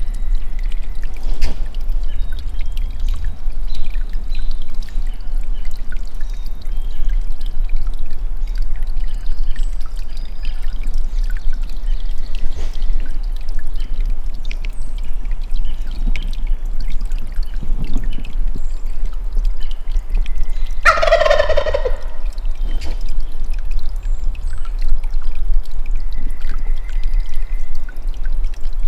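A wild turkey gobbler gobbles once, about a second long, roughly two-thirds of the way in.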